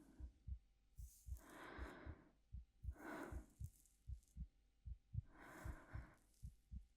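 Soft human heartbeat, a steady run of low lub-dub thumps in pairs, under slow quiet breathing: a long breath about a second in, a shorter one around three seconds, and another at about five and a half seconds.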